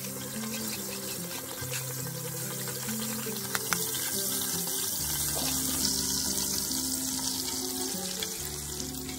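Background music over a steady hiss of oil heating in a frying pan on a camping gas stove, with a couple of sharp clicks about three and a half seconds in; near the end beaten egg is poured into the hot pan.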